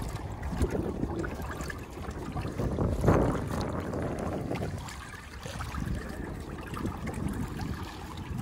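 Water splashing and lapping against the hull of a Galaxy Supernova pedal fishing kayak under way, with wind on the microphone; the splashing swells louder about three seconds in.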